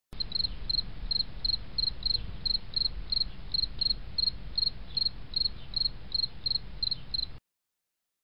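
A cricket chirping steadily, about three short, high chirps a second, over a low steady rumble; it cuts off abruptly near the end.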